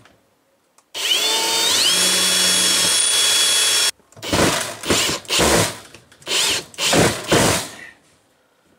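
Kobalt cordless drill/driver running for about three seconds, its whine rising as it spins up and then holding steady before stopping abruptly, driving a screw to mount a metal mesh screen guard. Then several short scraping noises as the mesh screen is handled.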